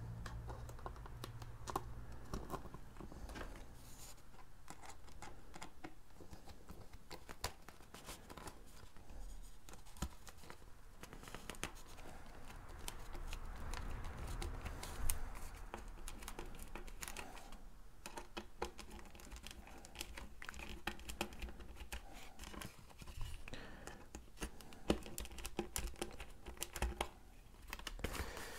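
Faint, irregular clicks, taps and rustling from hands handling a foam RC-plane tail and fitting small plastic control horns and their screws. A low steady hum runs underneath.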